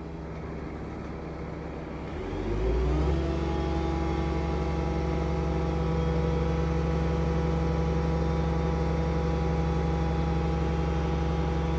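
An engine running steadily, revving up a little over two seconds in and then holding at a higher, steady speed.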